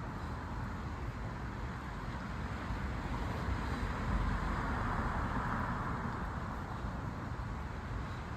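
A car passing on a nearby road, its tyre noise swelling about halfway through and then fading, over a steady background hum of traffic.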